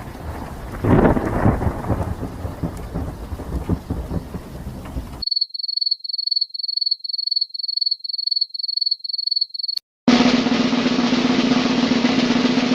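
A run of stock sound effects. First comes a rumbling noise for about five seconds. Then a high beep repeats quickly, about three beeps a second, ending in a click. Last comes a loud rushing noise with a steady low hum.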